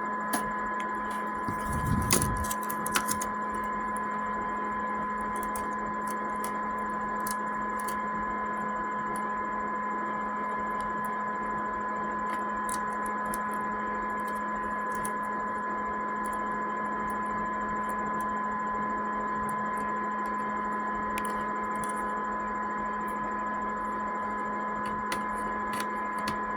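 Steady electrical hum with a high whine, made of several fixed tones, with faint scattered clicks and a soft thump with clicks about two seconds in, small handling noises from desoldering work.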